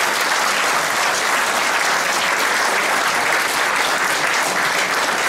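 An audience applauding, steady sustained clapping from many hands.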